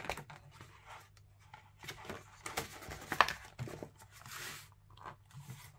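Paper pages of a large picture book being turned and pressed flat by hand: soft rustling and crinkling with a few light clicks.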